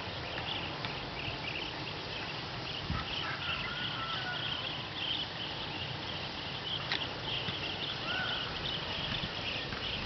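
A dense, high-pitched chorus of chirping animal calls, with a few short rising whistled calls standing out about a third of the way in and again near the end.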